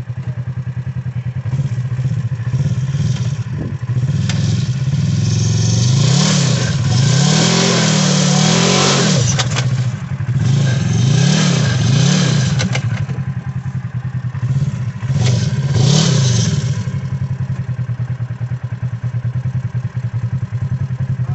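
Polaris RZR side-by-side's engine running, then revved hard several times over about ten seconds, the pitch climbing and falling with each blip as the stuck machine tries to drive itself off a dirt berm. Its tyres spin in the loose dirt during the revs.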